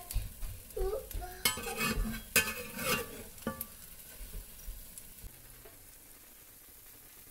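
A metal spatula scrapes and clatters against a cast iron skillet while flipping sourdough crumpets, with several sharp strokes in the first few seconds. Hot oil sizzles around the frying crumpets, left on its own as a faint, steady sizzle after about four seconds.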